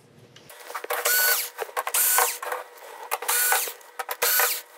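Black+Decker cordless screwdriver backing screws out of a TV power supply board: four short runs of its whining motor, each about half a second, with small clicks between.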